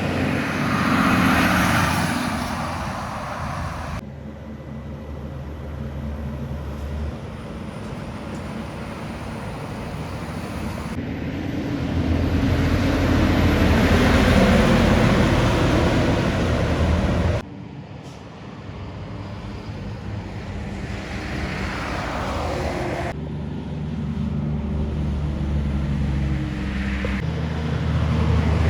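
Heavy trucks driving past on a highway one after another, each engine's low drone building and fading over tyre and road noise. The sound cuts abruptly four times as short clips are joined together.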